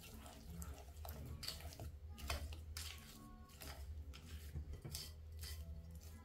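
A plastic spoon stirring and scraping thick banana cake batter around a bowl, in uneven strokes about twice a second, over a low steady hum.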